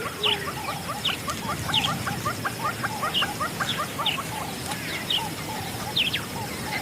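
Bush ambience: many short bird chirps and calls, some in quick even runs of about five a second, over a steady high insect buzz.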